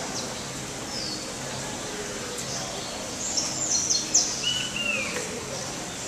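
Small birds chirping: a quick cluster of high chirps about three seconds in, then a short arched call a second later, over a steady low hum.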